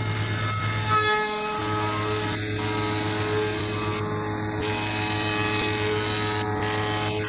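Spindle moulder with a power feeder running steadily, a board being fed past its cutter: a steady machine hum, with the steady noise of the cutter machining the wood coming in about a second in.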